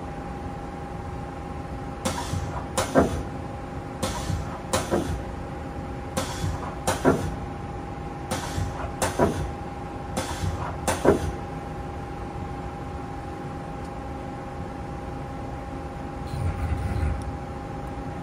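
Haas SL10 CNC lathe powered up, humming steadily with a constant whine, while pairs of short mechanical clunks come about every two seconds, five or six times, then stop. A brief low rumble follows near the end.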